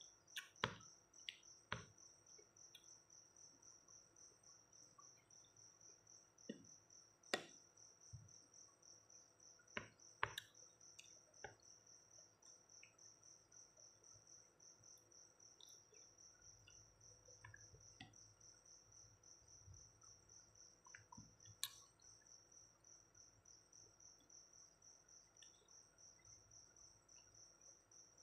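Faint cricket chirping in a steady, evenly pulsed high trill, with occasional soft clicks of a plastic spoon in a bowl and eating sounds.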